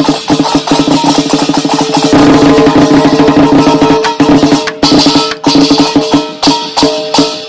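Music with fast, dense rattling percussion over held notes; near the end the percussion thins into separate, evenly spaced strokes.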